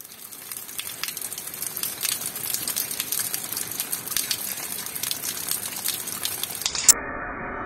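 Rain falling on gravel and potted plants: a steady hiss of spattering water with many sharp individual drop taps. It fades in and grows louder, then cuts off suddenly near the end as orchestral music begins.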